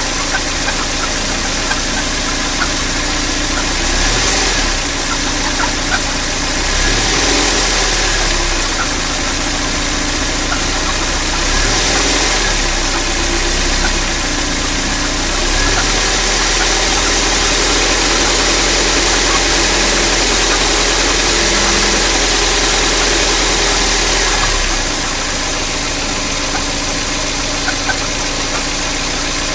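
Mazda Roadster NB (MX-5) engine running at idle, picking up briefly three times and then held at a higher speed for about nine seconds before settling back to idle. A few faint ticks are heard over it.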